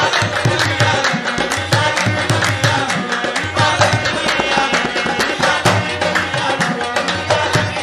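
Qawwali music in an instrumental passage between sung lines: tabla plays a fast, dense rhythm over sustained harmonium chords, with a few short vocal phrases.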